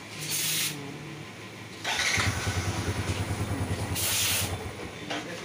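Bajaj V15's single-cylinder engine electric-started with the self starter, catching about two seconds in and then idling with a rapid, even beat. The self start is working with a new starter relay fitted.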